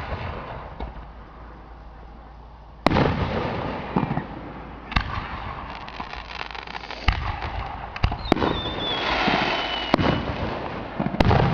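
Aerial fireworks bursting, with sharp, echoing bangs every second or two. In the second half there is a crackling spell and a falling whistle.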